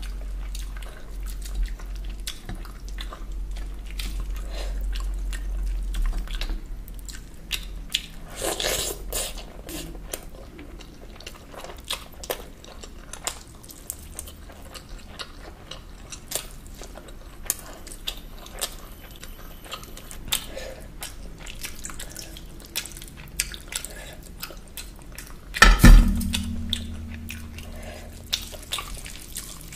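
Close-miked eating sounds: wet squelching of rice being mixed with chicken curry gravy by hand, and biting and chewing a roasted chicken leg, with many small wet mouth clicks. One loud thump near the end.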